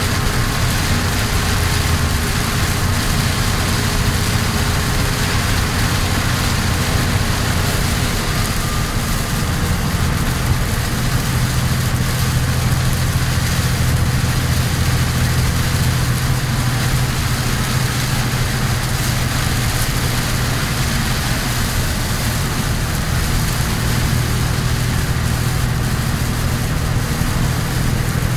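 Cummins ISC six-cylinder diesel of a Kenworth T350 truck droning under way, heard inside the cab, over a steady noise of heavy rain and spray on the cab and windscreen. About ten seconds in the engine note steps up in pitch and then holds.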